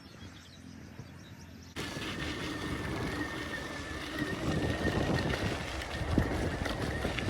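Electric bicycle being ridden: wind and tyre rumble with a faint steady whine, starting abruptly about two seconds in after a quiet stretch.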